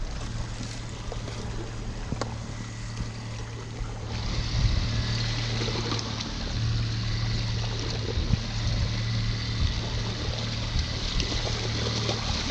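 Outboard motor running steadily at trolling speed, with water splashing at the surface as a hooked salmon thrashes beside the boat. A hiss of water and wind grows louder about four seconds in.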